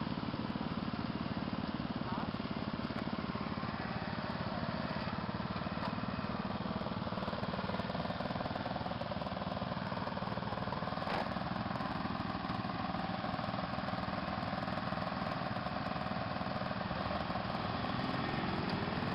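Small engine of a modified racing riding mower running steadily at idle, mixed with several ATV engines idling close by.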